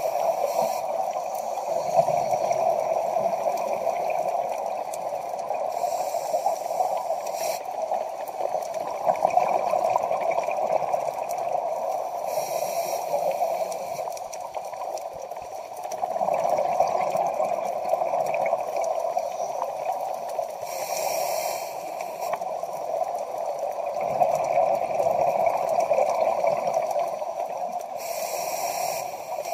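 Scuba diver's regulator breathing underwater: a short hissing inhale about every seven seconds, with long bubbling exhales in between.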